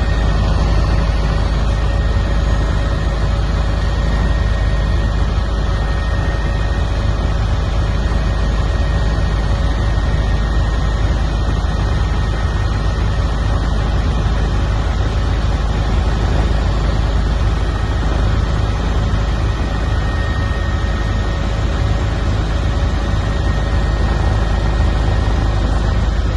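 Helicopter engine and rotor noise: a loud, steady drone with a constant whine above it.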